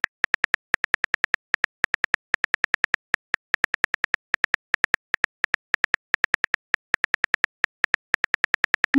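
Smartphone keyboard typing sound effect: rapid, identical key clicks, about five a second, with a few short pauses as a message is typed out.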